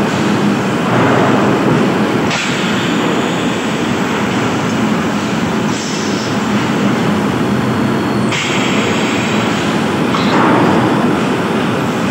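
Asbestos-cement corrugated sheet-making machinery running with a loud, steady mechanical din. A hiss comes in about two seconds in and again about eight seconds in, each lasting a few seconds.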